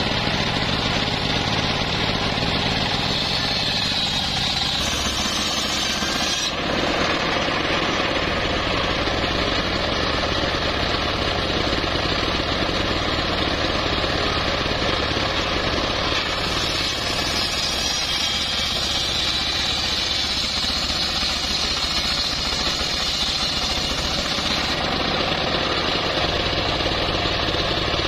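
Homemade engine-driven circular saw bench running steadily, its large blade ripping lengthwise through a teak log. The cutting hiss grows louder twice over the steady engine drone.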